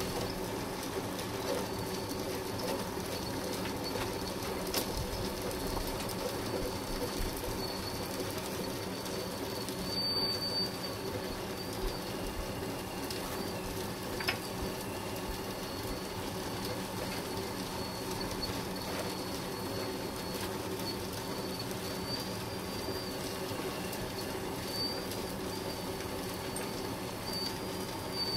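Lesu PC360 RC hydraulic excavator running, its hydraulic pump motor giving a steady hum while the boom, bucket and slew move, with a thin high whine over it.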